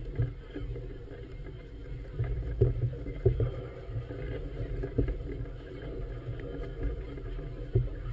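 Low, muffled rumble of wind and choppy water against a moored floating vessel, broken by irregular thumps, the loudest about two and a half, three and a half, five and nearly eight seconds in.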